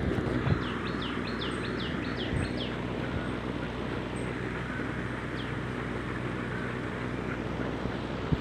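A bird sings a quick run of about eight short, descending chirps starting about a second in, and gives one more chirp later. Steady background noise runs underneath.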